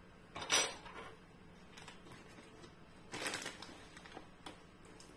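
Plastic bag of ground almonds crinkling as it is handled and opened, in two short rustles, one about half a second in and one about three seconds in, with a few faint ticks between.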